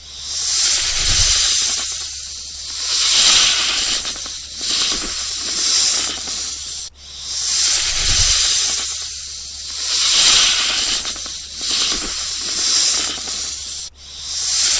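Snake hissing in repeated swells, each rising and fading over about a second. The sequence loops about every seven seconds, each time opening with a soft low thump.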